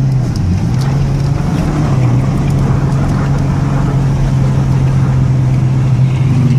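Ford Ranger pickup's V6 engine held at high revs, the pitch dipping briefly near the start and then climbing and staying steady.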